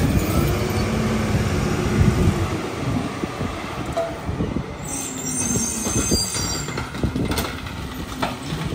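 Rear-loader garbage truck (Freightliner M2 with a McNeilus packer body) moving off: engine running with a steady hum, clanking and rattling from the body, and a high metallic squeal about five seconds in.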